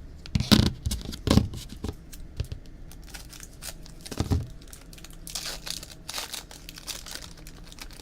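A trading-card pack wrapper crinkling and cards being handled, with a few sharp crackles about half a second, a second and a half, and four seconds in, and a longer rustle a little later.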